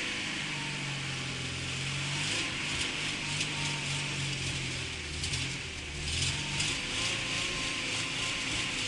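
Zhiguli car engine running, its pitch holding and stepping between a few levels under hiss, with runs of rapid clicking from about two seconds in.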